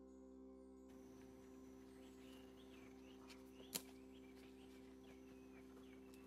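Near silence, outdoors: faint short chirping calls come and go, and there is one sharp click a little past halfway.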